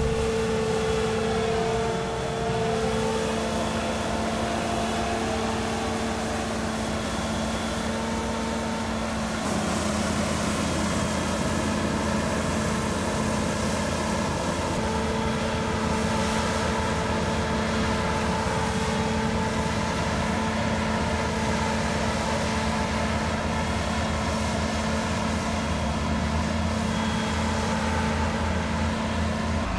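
Combine harvester and tractor working in a wheat field: a steady drone of diesel engines and threshing machinery with a few held tones. One tone dips and rises again about two seconds in, and the sound shifts slightly twice further on.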